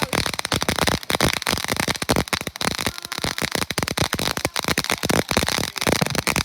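Consumer fireworks going off in a rapid, continuous string of crackling bangs, many pops a second.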